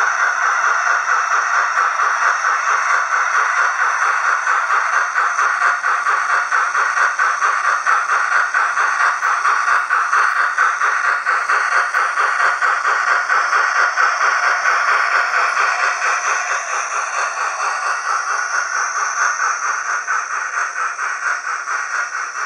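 Hornby OO gauge model train wagons rolling on the track, heard close up: a fast, steady metallic rattle of small wheels on the rails, easing off a little in the last few seconds.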